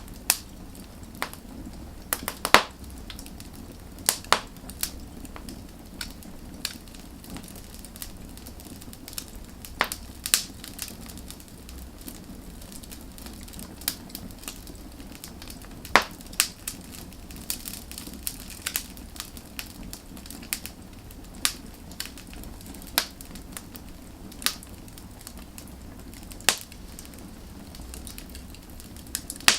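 Firewood burning with a low steady rumble of flame and irregular sharp crackles and pops, a few of them much louder.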